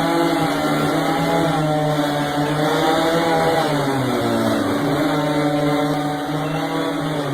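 Chainsaw engine running steadily under a carver's hands, its pitch wavering and dipping briefly about four seconds in and again at the very end as the load changes.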